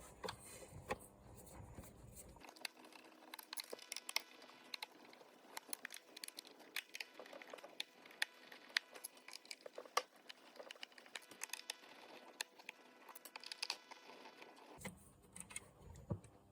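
Plastic casing of a UPS battery pack being handled and turned over, with many irregular small clicks and knocks.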